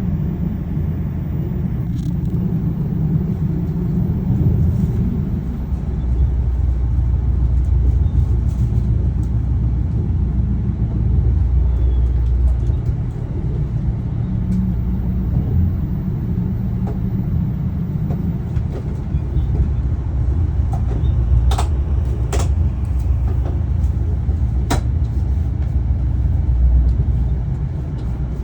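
Steady low rumble of a vehicle in motion, with three sharp clicks about three quarters of the way through.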